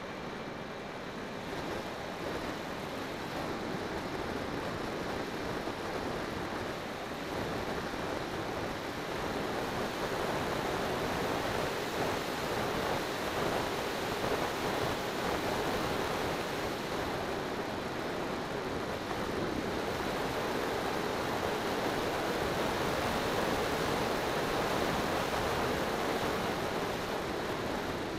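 Airflow and propeller noise of a Bixler 2 RC foam plane in flight, heard through its onboard keychain camera's microphone. It is a steady rushing roar that grows gradually louder over the first ten seconds or so.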